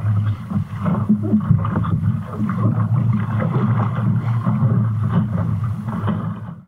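A small sailing dinghy underway in choppy water: wind buffeting the microphone in a steady low rumble, with water rushing and splashing against the hull. The sound cuts off suddenly near the end.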